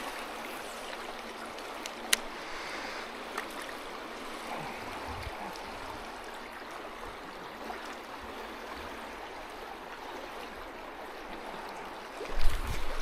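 Steady rush of river water flowing over the Cowlitz's gravel bed. A sharp click comes about two seconds in, and heavy low bumps come near the end.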